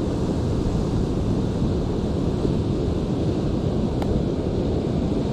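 Steady wind rumbling on the microphone, with the wash of surf breaking on the rocky shore behind it.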